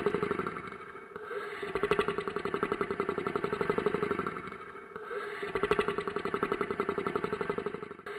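Monster snoring sound effect: long snores with a rapid fluttering rattle, each swelling for about three seconds, with short quieter breaks between them, two full snores after the end of one at the start.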